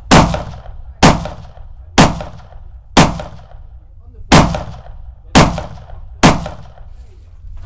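Seven rifle shots fired one at a time at about one-second intervals, each a sharp crack with a short echoing tail: steady, aimed semi-automatic fire at long-range targets.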